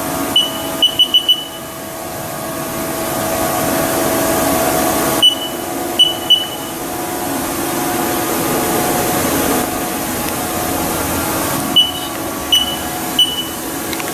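Haas CNC lathe control panel beeping at key presses: a quick run of about five short beeps near the start, three more around five to six seconds in, and three near the end. A steady machine hum runs under them.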